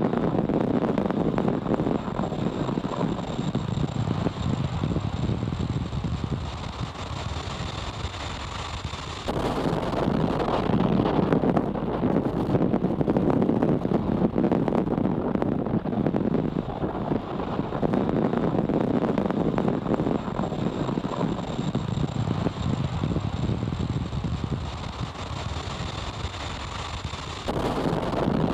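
A steady rushing, rumbling noise with no speech. It steps louder about nine seconds in and drops back, then jumps up again near the end.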